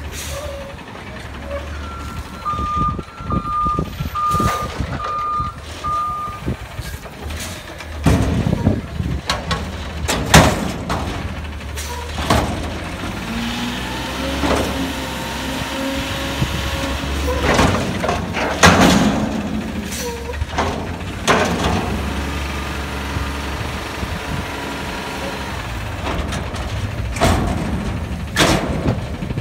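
Front-loader garbage truck emptying a dumpster: about five reversing beeps near the start over the idling engine, then the engine revving to work the hydraulic lift arms, with loud bangs as the steel dumpster is raised, emptied over the cab into the hopper and set back down.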